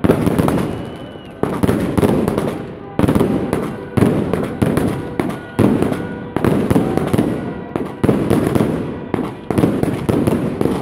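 Aerial fireworks bursting overhead in a rapid series, a bang about every second and a half, each followed by crackling as it fades.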